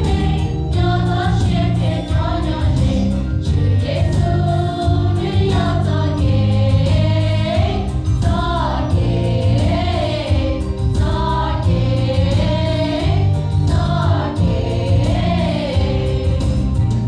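Women's choir singing a Hmong-language gospel song through microphones, over instrumental accompaniment with a steady bass line.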